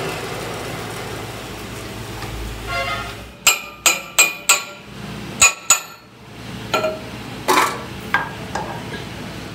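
A lathe hums low for about three seconds, then about ten sharp, ringing metal clinks come one after another, several in quick succession, as steel machined parts are handled and knocked together on the lathe.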